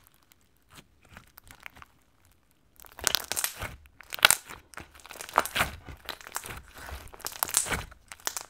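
Slime packed with foam beads being squeezed and worked by hand, giving a dense, irregular crunching and crackling. It is faint at first and becomes steady from about three seconds in.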